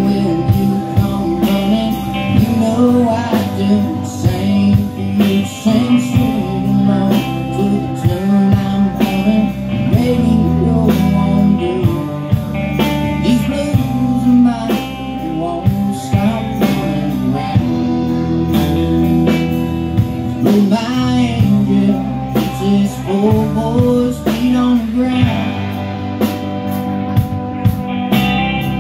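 Live band playing a song: electric and acoustic guitars, drum kit and trombone, over a steady drum beat with bending lead notes.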